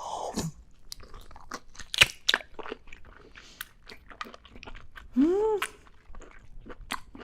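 Close-miked chewing of a big bite of octopus: many quick wet clicks and smacks from the mouth. About five seconds in there is one short hum that rises and falls.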